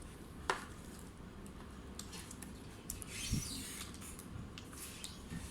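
Light handling noises: a sharp click about half a second in, then a soft knock with a brief rustle about three seconds in.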